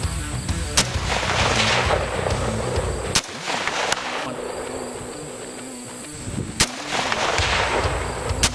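Five sharp shots from a .223 AR-15 rifle, spaced unevenly: about a second in, two close together around three to four seconds, one at six and a half, and one near the end. Background music runs underneath and drops away between the second and fourth shots.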